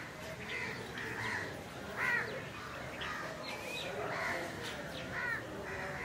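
Crows cawing: two loud caws, about two seconds in and again near five seconds, with fainter bird calls between them.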